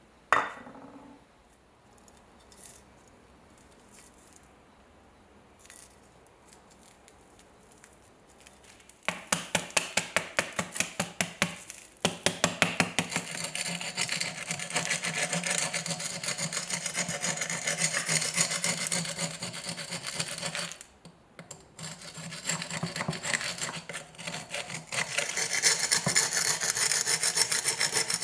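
A rusty steel bayonet scabbard knocks once on a wooden board, then after a quiet stretch a flat-bladed steel tool scrapes the thick rust crust off it. The scraping starts as quick separate strokes, about three or four a second, then runs almost without a break, with one short pause about three quarters of the way in.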